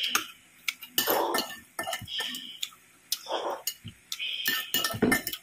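Metal spoon and fork clinking and scraping on a ceramic plate while eating rice and boiled pork, with short chewing and mouth noises from close to the microphone a few times.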